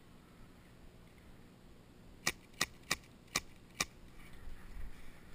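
Airsoft pistol firing five quick sharp shots in about a second and a half, a little over two seconds in.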